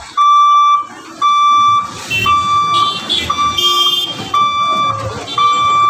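Level crossing warning buzzer sounding a steady, evenly pitched beep about once a second, each beep a little over half a second long, signalling that the gate is closed for an approaching train.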